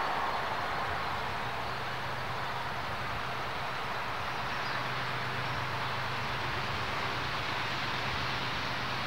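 Pair of DXC-class diesel-electric locomotives with GE V12 engines working a train of hopper wagons toward the listener, a steady low engine drone under the even noise of the moving train.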